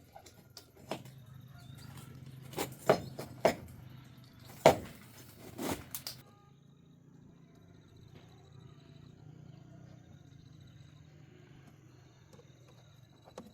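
A series of sharp knocks and clicks over a few seconds, the loudest about four and a half seconds in, followed by a faint steady low hum.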